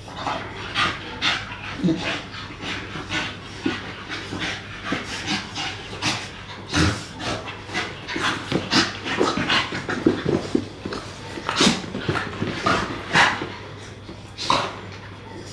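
Two Staffordshire bull terriers play-wrestling, with quick, irregular panting and huffing breaths from the dogs.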